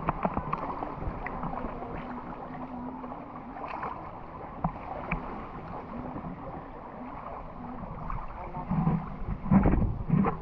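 Shallow water lapping and sloshing around a waterproof action camera held at the surface, muffled, with small splashes and clicks. Near the end come louder bumps and knocks as the camera is handled and lifted out of the water.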